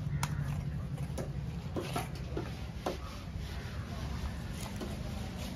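Large knife cutting a trevally fillet away from the frame on a wooden block: scattered irregular clicks and scrapes, over a steady low hum.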